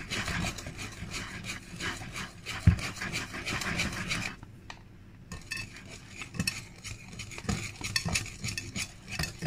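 A utensil stirring and scraping thick mascarpone cream in a mixing bowl, working the lumps out. Steady scraping for about four seconds, with a dull thump partway through, then a brief pause and scattered scrapes and clinks against the bowl.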